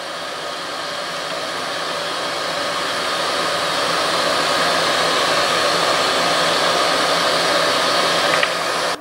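Steady rushing air from a solder fume-extractor fan, which cuts off suddenly near the end.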